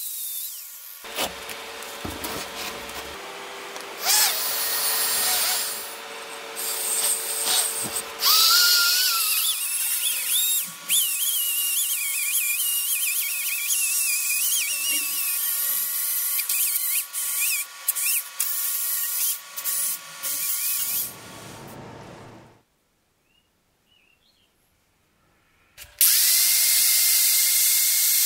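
Power tools stripping rust from a cast iron swage block in several short cuts: an angle grinder with a wire wheel, then a rotary tool with a small wire brush whining high against the iron. After a few seconds of near silence, an angle grinder with a grinding disc runs steadily against the metal near the end.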